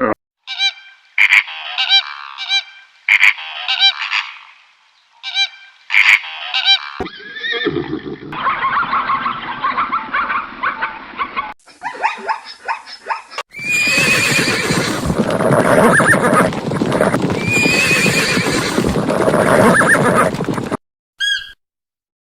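A series of animal calls: short, repeated pitched calls for the first several seconds, then longer, denser stretches of calling, loudest in the second half.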